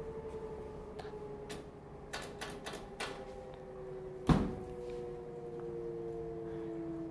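Front-load washing machine running with a steady whine that slowly drops in pitch, as if the drum is winding down. A run of sharp clicks comes between about one and three seconds in, then one loud thump about four seconds in.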